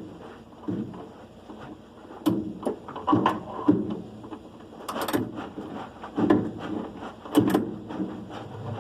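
Irregular knocks, clicks and scrapes of a washing machine being handled and worked on, its panels and parts moved about, with a few sharper clacks.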